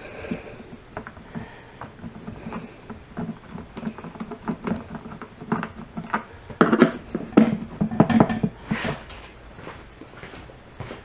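Clicks, taps and rattles of a screwdriver and loose parts being handled while T20 Torx screws are taken out of a Craftsman air compressor's top cover, busiest and loudest about six to nine seconds in.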